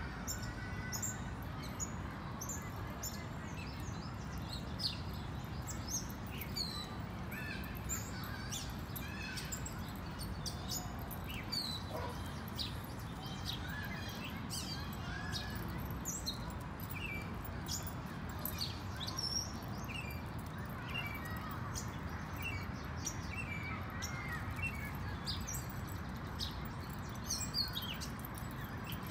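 Small birds chirping, many short high calls scattered throughout, over a steady low background noise.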